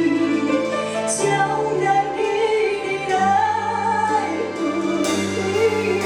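Background music: a song with a woman's voice holding long, wavering notes over accompaniment.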